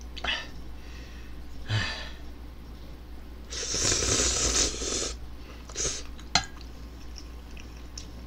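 Slurping instant ramen noodles, with one long slurp of about a second and a half in the middle and shorter slurps or sniffs before and after it. Near the end comes one sharp tap of a utensil.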